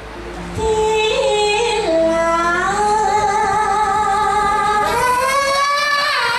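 A solo singing voice, amplified through a stage microphone, holding long drawn-out notes. It starts about half a second in, slides up in pitch around two seconds in, rises again near five seconds and wavers near the end.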